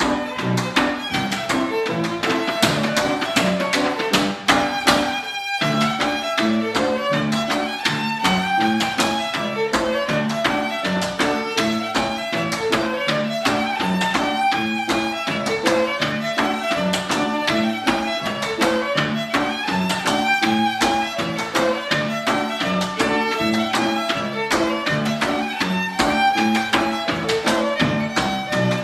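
Fiddle and electronic keyboard playing a lively hornpipe, the fiddle carrying the melody over a steady keyboard accompaniment, with a momentary break about five and a half seconds in.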